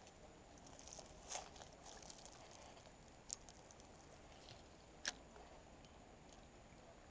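Near silence: a faint steady hiss broken by three soft clicks, the sharpest about five seconds in.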